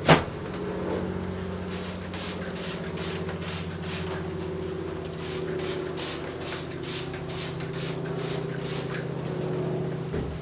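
A wooden hive frame knocks once as it is set down, then frames are eased slowly into a box crowded with honey bees, giving soft rustling scrapes a few times a second over a steady low hum.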